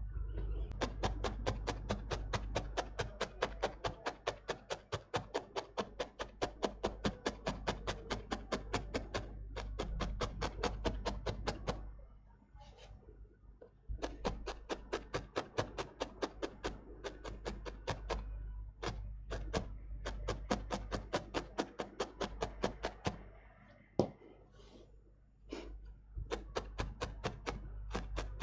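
Double felting needle stabbing repeatedly through wool roving into a foam pad inside a metal heart-shaped mold: a quick, even run of soft ticks, several a second. It pauses twice, and there is one sharper click about two-thirds of the way through.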